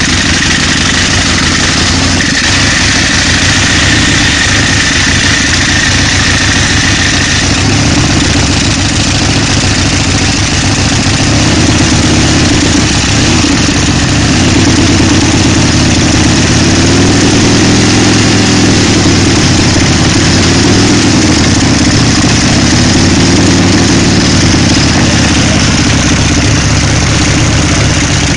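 Home-built Harley-Davidson chopper's V-twin engine idling as it warms up, with a few gentle revs that rise and fall in the second half.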